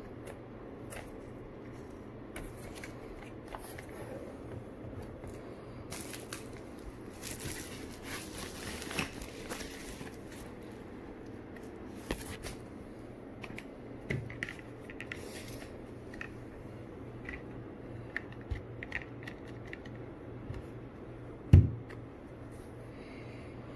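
Plastic shrink-wrap being torn and crinkled off a vape kit box, with scattered clicks and rustles of packaging being handled. One loud thump near the end.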